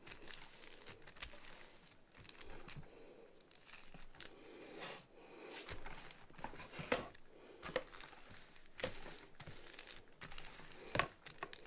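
Hands pressing and smoothing a paper sheet onto the wet foam sponge of a wet palette: faint rustling and crinkling of damp paper with a few soft taps.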